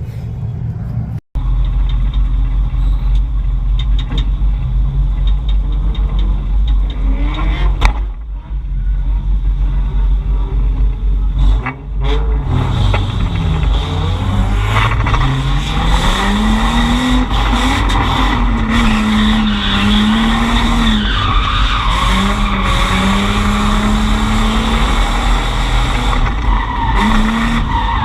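Drift car on track: after a sudden cut about a second in, a loud steady rumble, then from about halfway the engine revs rising and falling repeatedly, with tyre squeal from the skidding tyres.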